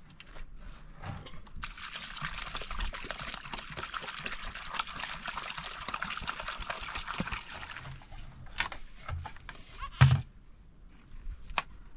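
Water pouring steadily for about six seconds, starting about two seconds in, then a single dull thump about ten seconds in.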